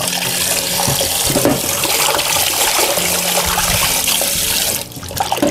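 Tap water pouring into a stainless steel bowl in a sink and splashing over a raw pig stomach as hands knead it, rinsing out the salt. The flow stops near the end.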